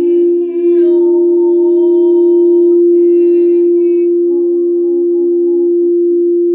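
Singing bowl ringing in one steady sustained tone while a woman's voice hums a wordless toning chant over it, holding one note and moving to another about four seconds in.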